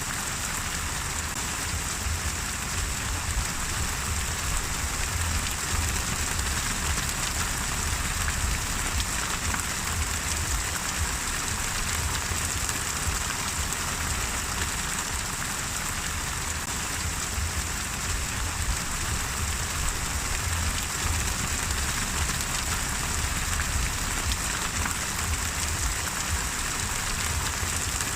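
Steady rain, an even unbroken hiss of falling rain with no individual drops standing out and a low rumble underneath.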